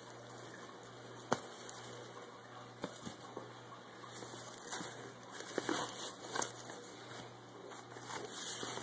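Plastic shrink-wrap on packs of paper labels crinkling and rustling as hands move and press on them in a cardboard box, with a sharp tap about a second in and more frequent crinkles in the second half.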